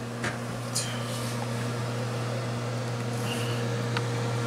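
Steady appliance hum in a kitchen, with a few light clicks and clinks as pie tins are set on the oven rack.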